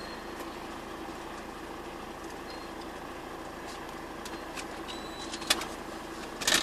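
Truck engine idling, a steady low hum heard from inside the cab, with a couple of short clicks near the end.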